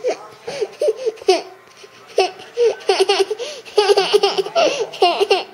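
A toddler laughing in repeated high-pitched giggling bursts: a few early, a short pause, then a long run of laughter through the second half.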